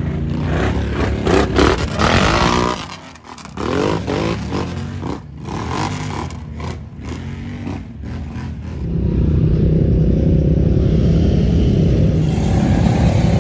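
Side-by-side off-road vehicle engine revving unevenly, with knocks and clatter, then running steadily from about nine seconds in.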